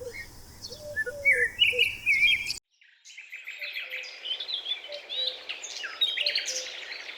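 Birds chirping and calling. A few scattered calls come first, then a sudden brief break, then a dense chorus of many overlapping chirps.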